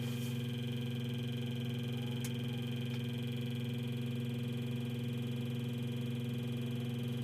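Car radio speakers giving out a steady, unchanging electrical buzz made of several constant tones instead of a station. This is the noise the BMW's replacement radio puts out on AM and FM, with no reception.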